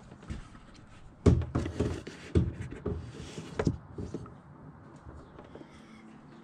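Handling noise: a cluster of knocks and rustles starting about a second in and lasting about two and a half seconds, then quieter.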